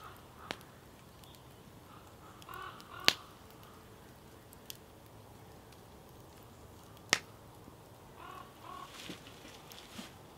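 Wood campfire crackling, with a few sharp pops; the two loudest are about three and seven seconds in.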